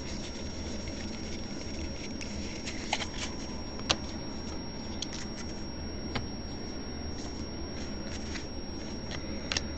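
Baseball trading cards being flipped through and sorted by hand, with faint scattered clicks of card edges over a steady low hum.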